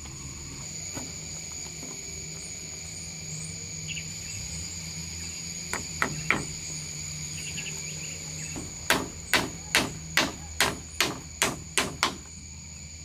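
Hammer blows: two knocks about six seconds in, then a run of eight even strikes at about two and a half a second. Insects chirr steadily underneath.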